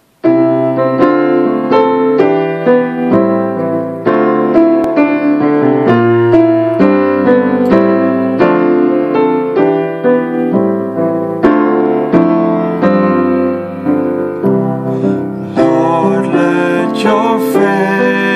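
Piano playing a steady chordal introduction to a hymn-style psalm setting, both hands sounding evenly paced chords. The playing starts abruptly just after the beginning.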